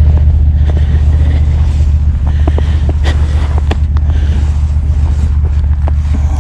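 Loncin 30 hp engine of a Krosh tracked all-terrain vehicle running at a steady speed, a deep even hum, with a few short clicks in the middle.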